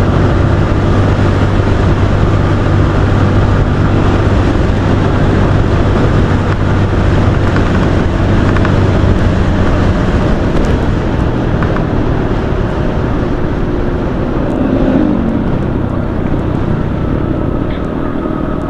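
Motorcycle at road speed, about 80 km/h, heard through a helmet-mounted action-camera microphone with a homemade wind muff: a steady engine hum under wind and road noise, easing slightly near the end.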